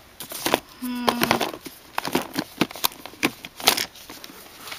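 Plastic makeup palettes and compacts being handled, with irregular clicks and knocks as they are moved and tapped against one another. A short voiced sound comes about a second in.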